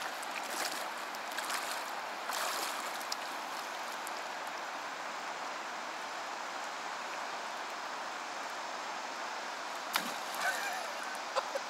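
Steady rush of a fast-flowing river over a shallow stony bed. About ten seconds in come a few short sharp splashes as a skipped stone strikes the water.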